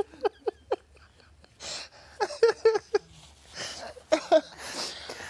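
Helpless, breathless laughter: quick runs of short high-pitched 'ha' pulses, about five a second, broken by wheezing gasps for breath.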